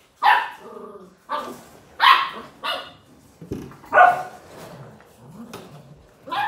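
Australian cattle dog (blue heeler) puppies barking while play-fighting: about five short, sharp barks spread unevenly over the first four seconds, with quieter sounds between them.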